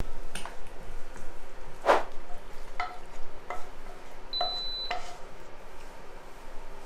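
Wooden spatula scraping and knocking against a nonstick frying pan while creamy penne is pushed out into a bowl, with a handful of short ringing taps spread about a second apart, the loudest about two seconds in. A short high beep sounds about four seconds in.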